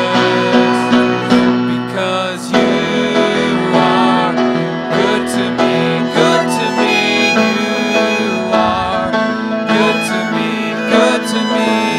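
Live worship music: grand piano and violin playing a slow song, the violin carrying a wavering melody, with voices singing along.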